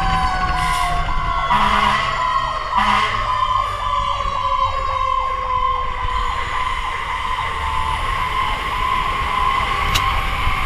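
Fire engine siren on a responding truck, sounding a long wail that falls slowly in pitch over several seconds. It plays over a steady rumble of engine and wind noise on the truck-mounted camera.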